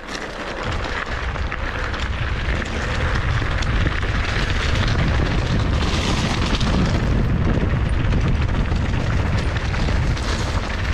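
Wind buffeting the microphone of a handlebar-mounted action camera and tyres rattling over loose gravel as a Specialized Demo 8 downhill bike rides fast down a gravel road. The noise builds over the first few seconds, then holds steady.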